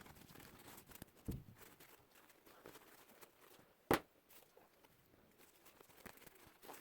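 Faint rustling with a soft thump about a second in and one sharp knock about four seconds in.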